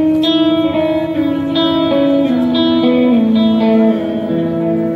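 Amplified guitars playing a song's instrumental intro: a plucked melody stepping down note by note over sustained notes.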